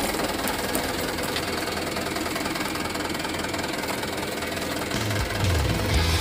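A truck engine running steadily. Music comes in about five seconds in.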